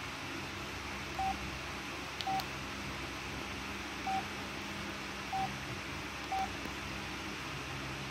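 Samsung Contour 2 phone's keypad beeping as its keys are pressed to move through the menus: five short beeps of one pitch, unevenly spaced, over a faint low hum.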